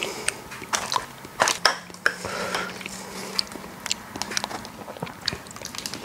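Irregular light clicks and knocks of kitchenware and food being handled as the dish is readied for serving.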